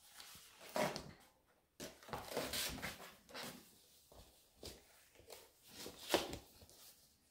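Paper rustling and sliding as a vinyl LP is slipped into its paper inner sleeve and the sleeve is handled by cotton-gloved hands. The sound comes in short bursts, with the sharpest about a second in and again about six seconds in.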